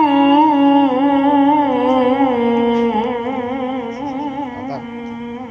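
A male qori's Quran recitation through a microphone and loudspeaker: one long melodic line with wavering ornaments that steps down and settles on a lower held note, fading toward the end.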